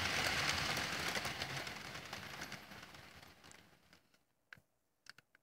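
HO scale model train, a Bachmann B23 diesel locomotive and its cars, rolling along the track with a steady rattle of wheels and motor that fades out as the train slows to a stop about four seconds in. A few faint clicks follow.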